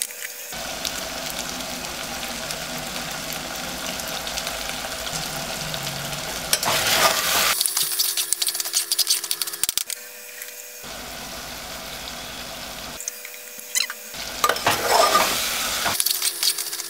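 Mutton and onions sizzling as they fry in an aluminium pressure cooker, with a metal spatula stirring and scraping the pot. The scraping is loudest in two spells, about halfway through and near the end.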